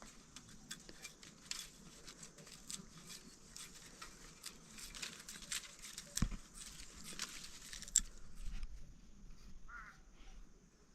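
Rain pattering in a dense run of small drops, thinning out after about eight seconds, with a brief high chirp near the end.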